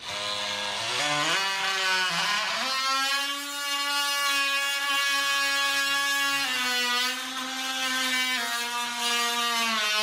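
DeWalt oscillating multi-tool with a plunge blade scoring a shallow line into a white fir shiplap board, a steady buzzing whine. The pitch climbs over the first couple of seconds as the blade bites, dips slightly a little past the middle, and drops near the end.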